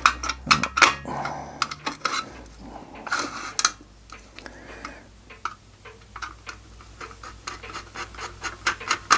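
Small metal clinks, taps and scrapes as the brass boiler and tinplate base of a Mamod model steam engine are handled and worked apart by hand, with a quicker run of light ticks near the end.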